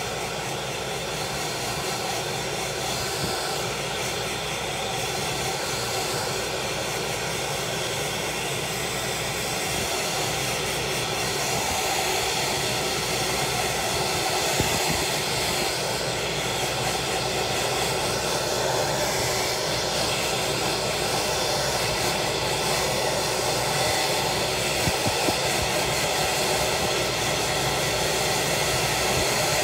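Handheld hair dryer running steadily, blowing air over a pile of fresh egg noodles to dry them, its motor adding a faint steady whine to the rush of air.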